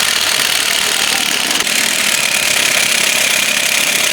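Impact wrench hammering steadily on a seized front-suspension lower-arm bolt.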